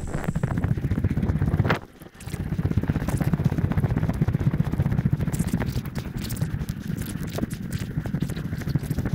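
Footsteps through dry grass and brush, with gear and clothing rustling against a chest-mounted camera and a steady low rumble on its microphone. The sound drops out briefly just before two seconds in.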